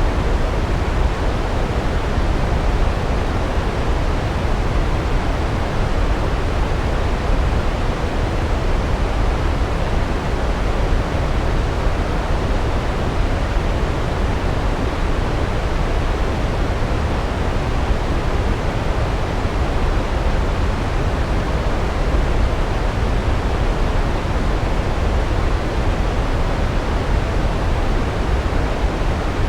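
Large waterfall heard from close by: a steady, deep rumble of falling water that does not let up.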